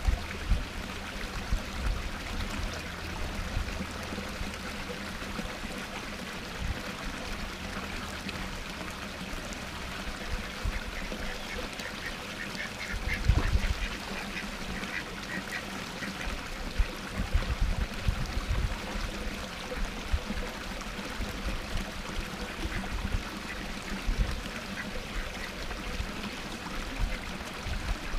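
Domestic ducks quacking now and then, mostly around the middle, over the steady splash of a small waterfall pouring into a pond. A few low thuds come and go.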